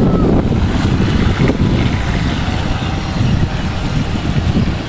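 Radio-controlled speedboat's motor running as the boat planes across open water, under a steady low rumble of wind buffeting the microphone.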